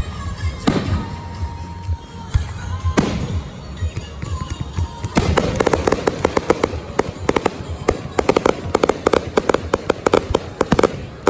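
Fireworks: two booming shell bursts echoing, about a second and three seconds in, then from about five seconds in a dense rapid crackling of crackle stars.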